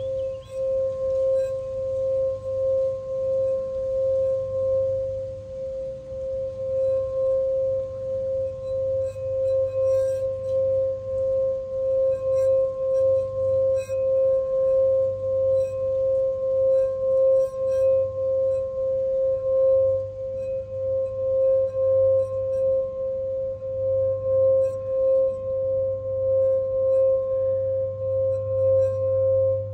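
Crystal singing bowl sung by a wand rubbed around its rim, holding one steady tone near 528 Hz with a fainter overtone an octave above. The loudness swells and dips gently as the wand circles. Faint bird chirps sound over it.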